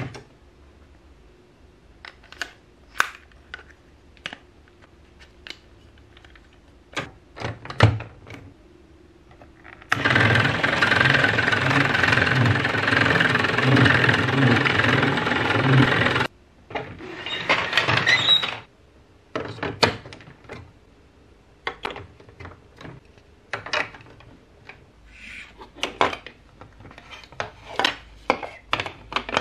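Plastic building blocks and track pieces clicking and knocking as they are snapped together. About ten seconds in, a loud six-second stretch of mechanical rattling with a regular pulse as a hand crank drives plastic gears and the large wheel elevator, followed by a shorter, fainter stretch of it.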